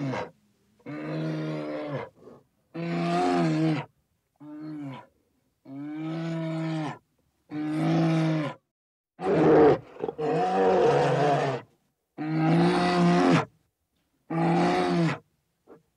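An animal calling over and over: about nine loud, steady-pitched calls of roughly a second each, separated by short silences.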